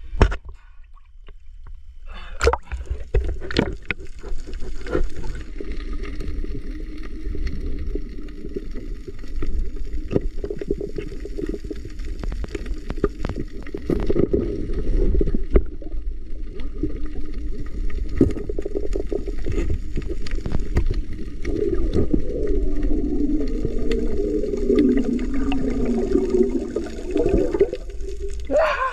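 Muffled underwater sound of a night spearfishing dive: a steady low rumble of water with scattered sharp clicks and gurgling, swelling into a wavering bubbling in the last few seconds.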